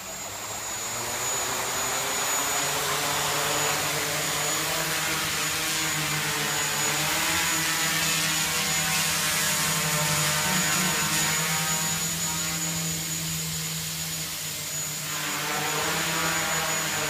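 Small quadcopter's electric motors and propellers buzzing steadily as it lifts off and hovers. The sound rises over the first second or two, dips briefly a couple of seconds before the end, then picks up again.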